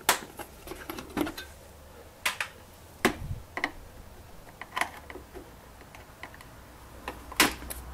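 Plastic push clips being prised out of a Suzuki Jimny's wheel-arch splash protector with a screwdriver: a series of irregular sharp clicks and snaps, the loudest near the end.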